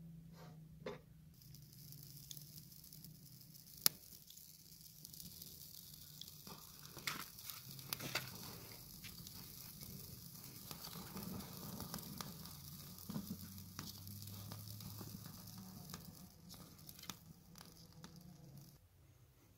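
Dry grass kindling crackling as a fire catches in the firebox of a mud-built clay stove, with rustling from the hand pushing it in and sharp snaps now and then, the loudest about four seconds in.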